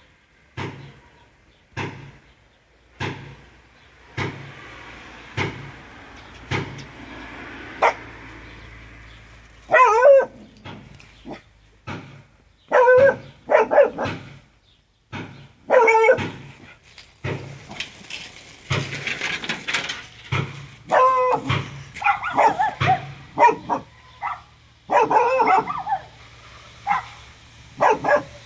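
Dog sneezing in short, sharp bursts about once a second, then barking and yipping in loud bursts several times.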